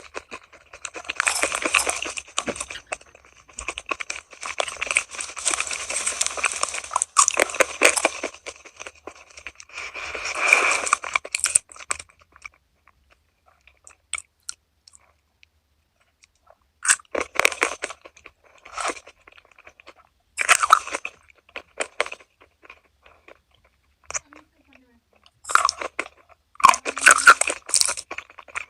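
Crunching and chewing of crispy food: dense, continuous crunchy bites for about the first twelve seconds, a pause of a few seconds, then separate crunchy bites near the end.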